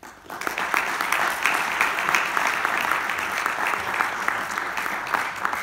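Audience applauding, a dense steady run of many hands clapping that breaks out suddenly just after the start.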